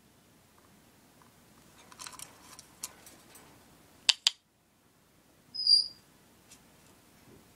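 Sun conure giving one short, high squeak a little before six seconds, the loudest sound here. Scattered sharp clicks come before it: a quick cluster about two seconds in and two sharp clicks at about four seconds.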